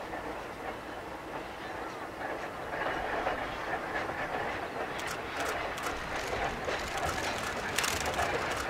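Siemens-built vintage electric locomotive hauling a short freight train past, its rumble growing louder about three seconds in. From about halfway, the wheels click over rail joints as the wagons go by.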